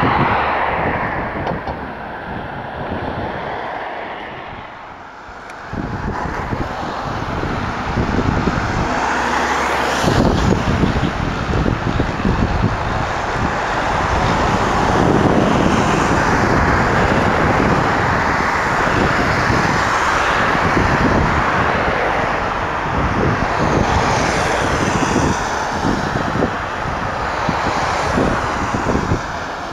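Aircraft engine noise, building after a short lull to a long sustained passage with sweeping changes in tone, while wind buffets the microphone.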